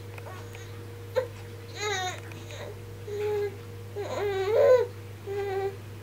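A baby babbling and fussing: four short, high-pitched vocal sounds, the loudest a longer wavering one about four seconds in. A steady low electrical hum runs underneath, with a single click just after the first second.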